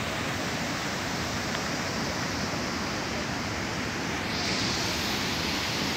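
Steady rushing of a fast mountain stream, turning hissier about four seconds in.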